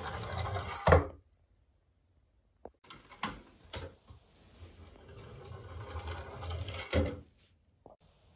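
Toy double-decker bus rolling down a wooden plank ramp: a rumbling roll of small wheels on wood that builds and ends in a sharp knock about a second in. A few light clicks follow, then a second roll builds from about four seconds in and ends in another knock near seven seconds.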